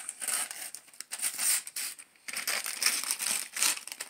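Gift-wrapping paper being torn and crinkled as a present is unwrapped, in uneven bursts with a brief pause about two seconds in.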